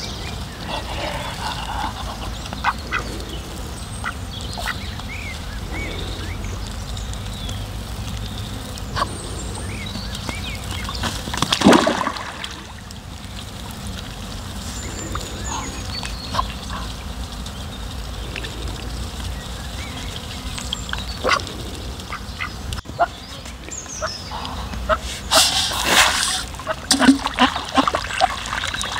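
Domestic ducks calling now and then while being fed, over a steady low background. There are scattered short calls and clicks, one louder sound about twelve seconds in, and a thick run of quick calls and pecking sounds near the end.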